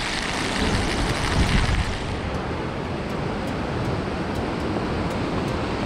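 Surf breaking and washing over a pebble beach, with wind rumbling on the microphone; the hiss turns duller about two seconds in.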